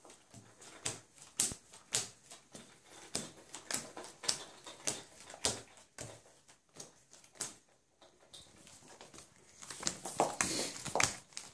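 Playing cards dealt face up one at a time onto a table top, each landing with a short click, about two a second, with a denser rustle of cards being handled about ten seconds in.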